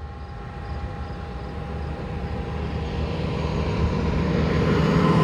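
Heavy vehicle engine approaching along the road, growing steadily louder.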